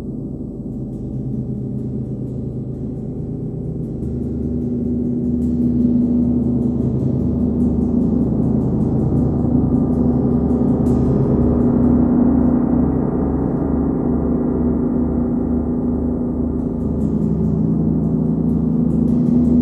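A 39-inch Nepalese wind gong played with a hard rubber ball mallet: a sustained wash of deep ringing tones that swells about 4 seconds in, its lowest tones pulsing with a slow beat.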